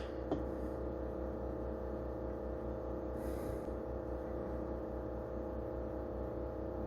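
Low, steady electrical hum with a faint click just after the start.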